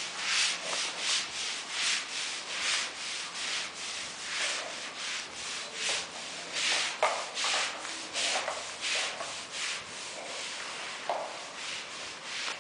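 Footsteps scuffing on gritty wet concrete, a rough scrape about twice a second as the person walks around the car.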